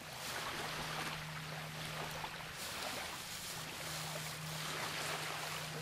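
Wind and surf noise, an even hiss that swells and eases, with a steady low hum underneath that comes in about half a second in.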